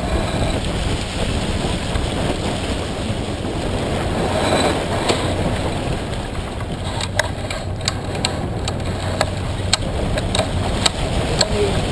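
Wind buffeting the microphone and water rushing past the hull of a sailboat under way, a steady, heavy noise. A scatter of short sharp clicks or knocks comes in the second half.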